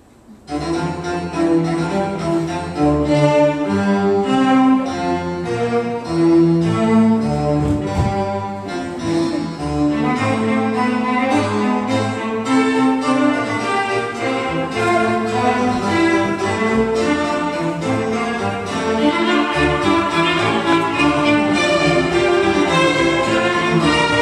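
Recorded orchestral music with bowed strings starts suddenly about half a second in, after a hush, and plays on with a steady stream of held notes, growing a little fuller near the end.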